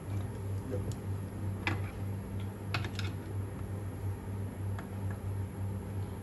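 A few small, sharp clicks and ticks of a screwdriver turning in the brass adjusting screw of a Druck pressure relief valve, the bunch of them near the middle. Under them runs a steady low hum with a regular pulse.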